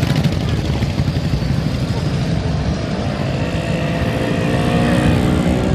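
Several vintage motorcycles and a scooter running at low speed as they ride past, a steady, pulsing low engine rumble.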